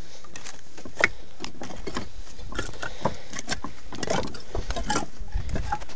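Wind buffeting the microphone as a steady low rumble, with irregular clicks and knocks of footsteps on loose flat rocks.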